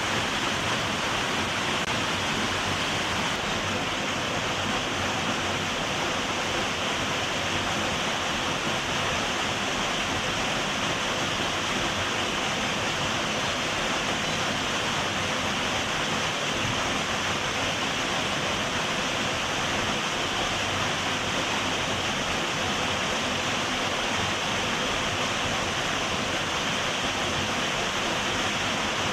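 Small waterfall and its stream: a steady rush of falling and flowing water, even throughout.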